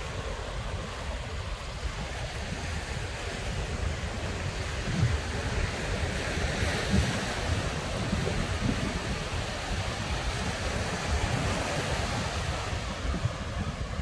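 Ocean surf washing onto a sandy beach, with wind buffeting the microphone in irregular low gusts. The wash swells somewhat midway through.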